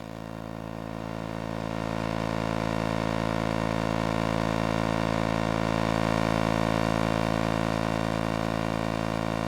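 Electromagnetic field of an iMac screen picked up by electromagnetic induction microphones: a steady electrical hum-buzz made of many stacked tones, growing louder over the first two seconds and then holding steady.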